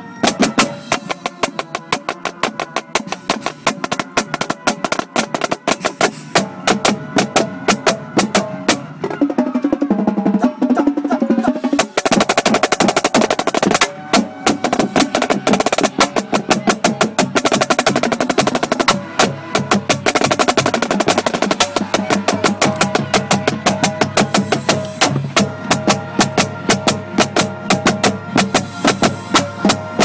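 Marching snare drum heard from right on the drum, playing fast, crisp stick strokes and rolls, with the rest of the marching band's brass and percussion playing along underneath.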